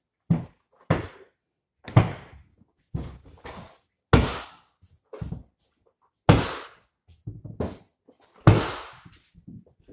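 A series of about a dozen irregular knocks and thuds, each sharp at the start and fading within about half a second. The loudest come about four, six and eight and a half seconds in.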